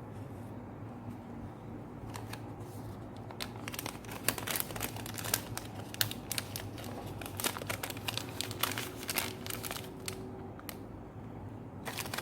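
Close-miked crinkling and clicking: a quick run of small sharp sounds from about two seconds in until about ten seconds in, over a low steady hum.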